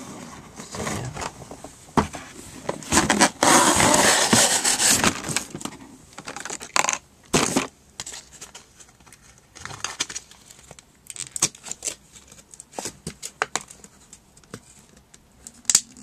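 A toy box being opened and its packaging handled. A loud ripping of packaging starts about three seconds in and lasts about two seconds, then scattered clicks, crackles and rustles follow.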